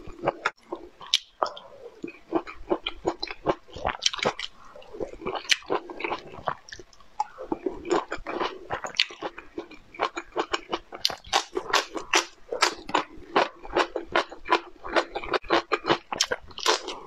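Close-miked eating: a person biting and chewing food, with a dense run of short crisp crunches that come closer together in the second half.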